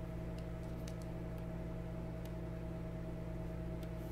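Steady low electrical hum with a few faint, scattered clicks, the taps of a stylus writing on a pen tablet.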